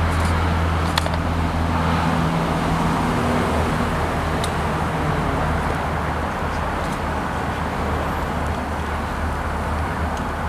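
A low, steady engine drone under a constant rushing noise, easing slightly in loudness; a few faint clicks.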